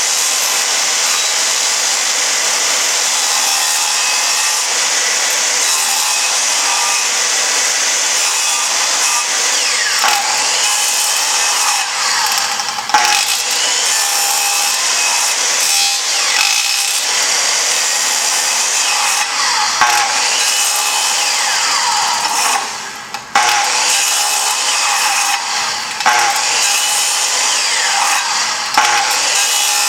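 Circular saw riding on the EZ-One guide rail, running and cutting through wood. The pitch slides up and down as the blade bites, and there is a brief drop in level about two-thirds of the way through before the cutting carries on.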